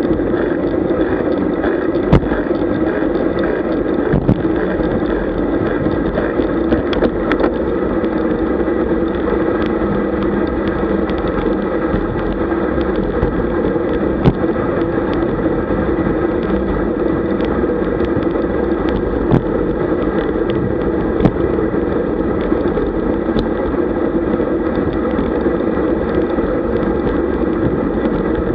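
Wind rushing over a bike-mounted camera's microphone at road-riding speed, with tyre and road rumble and a few sharp knocks from bumps.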